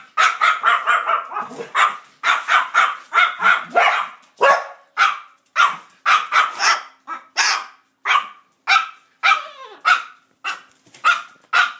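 A white cockatoo imitating a dog's barking: a long run of short, loud barks, two or three a second, in quick bursts.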